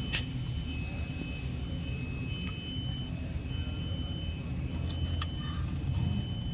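An engine running at a steady idle, with a string of high beeps, each under a second long, alternating between two pitches, and a few light clicks.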